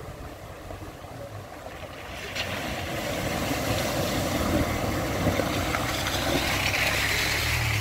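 Dacia Duster driving through a muddy ford, its engine running and water splashing up around the wheels, getting louder from about two seconds in as it approaches and passes close by.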